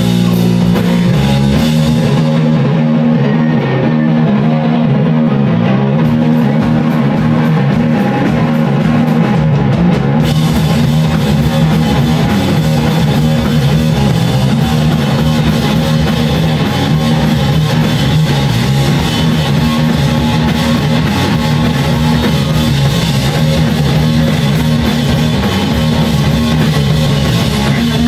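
A live heavy rock band plays loud and steady: electric guitar and bass riff over a drum kit. The cymbals drop out about two seconds in and come back suddenly about ten seconds in.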